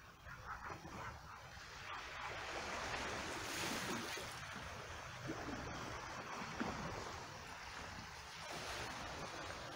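Small waves lapping on a rocky, cobbled shore, mixed with water trickling and splashing in a rock pool; the wash swells about three to four seconds in.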